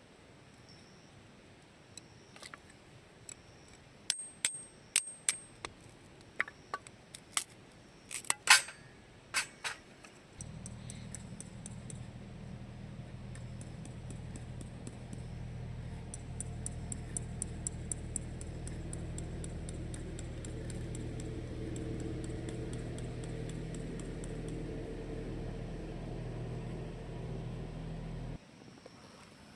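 A scatter of sharp clicks and clinks. About ten seconds in, a steady low mechanical hum starts; it runs for about eighteen seconds, with a short run of light ticks partway through, and then cuts off suddenly.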